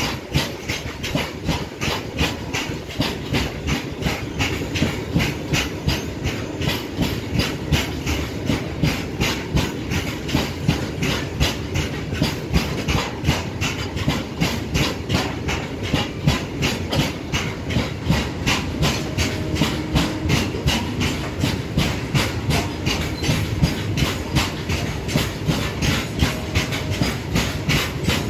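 Freight train of open wagons rolling past close by, its wheels clattering on the rails in a steady rhythmic clickety-clack under a continuous rumble and hiss.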